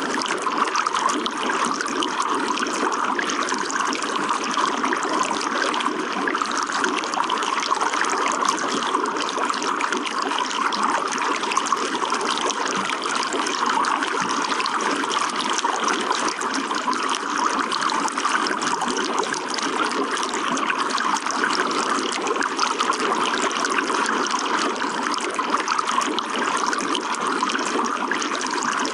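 Running water trickling steadily and evenly, with no pauses or changes.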